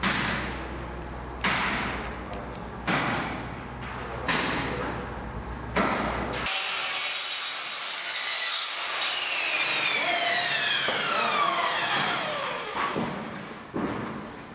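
Sharp knocks at an even pace, about one every second and a half, over a low hum. Then, about six and a half seconds in, a mitre saw cuts through wood and its blade winds down with a long falling whine.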